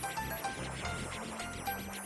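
Background music for a children's cartoon, with a bass line and short melodic notes over a regular beat.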